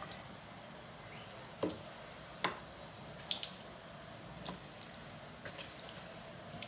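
Marinated chicken pieces being handled and laid into a dish: a few separate wet squelches and light clicks.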